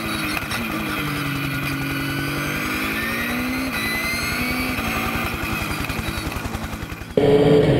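Race car engine revving up and down through the gears, heard from a distance, with a fast low flutter underneath. About seven seconds in it cuts abruptly to the much louder engine heard inside the car's cockpit.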